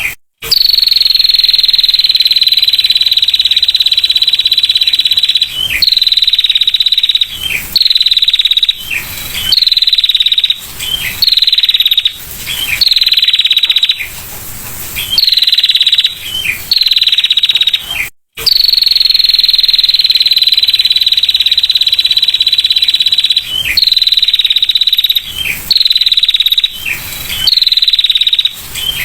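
Female prinia (prenjak) giving its rapid, buzzy 'ngetir' trill: a long trill of about five seconds near the start and again a little past halfway, slightly falling in pitch, with shorter trills of about a second between them. Two brief sudden dropouts break the sound where the recording repeats.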